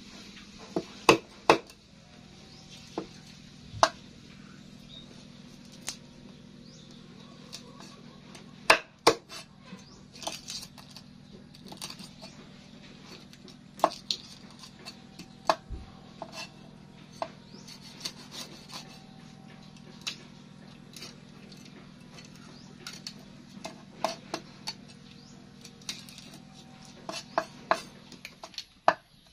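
A cleaver knocking and scraping on a thick wooden chopping block: irregular sharp knocks, several a few seconds apart, with scraping between them. A steady low hum runs underneath and stops near the end.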